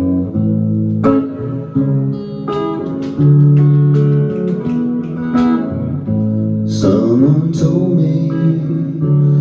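Guitar playing the song's intro, picked notes and chords ringing out one after another.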